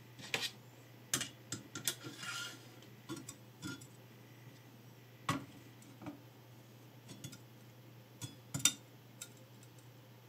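Scattered light clicks and knocks of metal parts of a Fino Edge knife sharpener and a clamped knife being handled and adjusted, with a short scraping rub about two seconds in. The loudest knock comes near the end.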